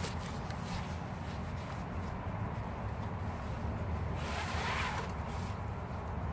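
Fabric webbing belt rustling and sliding through the belt loops of denim jeans, with a longer swish about four to five seconds in, over a steady low rumble.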